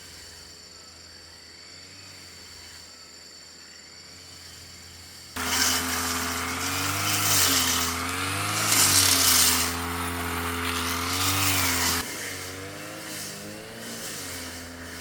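Brush cutter engine running, quiet and steady at first, then from about five seconds in louder with its pitch wavering up and down as it is throttled, dropping back to quieter running about three seconds before the end.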